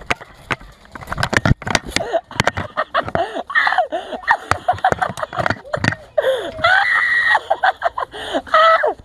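Players yelling and screaming in high, drawn-out cries, over many sharp clicks of airsoft guns firing, which are thickest in the first few seconds.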